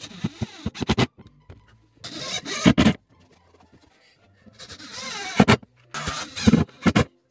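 Repeated scraping strokes, each a swell of rasping noise that ends in a sharp click, about every one to two seconds, over faint background music.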